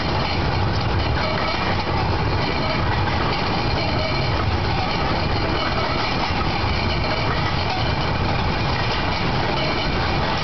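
Engine of a small narrow-gauge rail vehicle running steadily as it travels along the track, mixed with the noise of its wheels on the rails.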